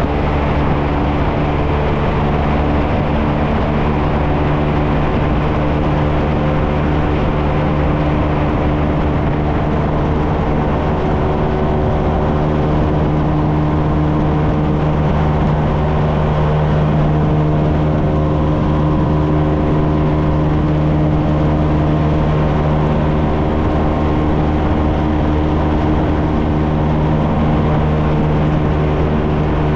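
A 125cc single-cylinder motorcycle engine holding a steady drone at constant cruising speed, with wind and road noise under it.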